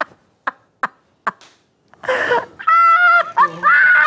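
A man breaking wind in a rapid string of short pops, about three a second, stopping about a second and a half in. From about two seconds in comes loud, high-pitched cackling laughter.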